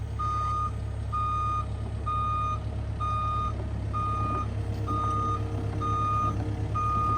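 Excavator's travel alarm beeping steadily, about one half-second beep per second, over the low, steady running of its engine.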